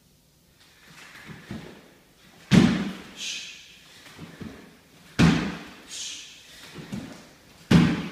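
Three heavy thuds about two and a half seconds apart as a man drops into sprawls on a wooden floor, each followed by a short hiss, with lighter knocks in between as he springs back up.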